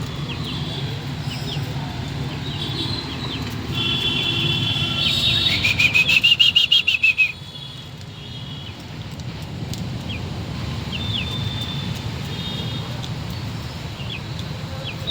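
Aseel rooster crowing once, starting about four seconds in and rising then falling in pitch for about three seconds before cutting off sharply. Small birds chirp throughout.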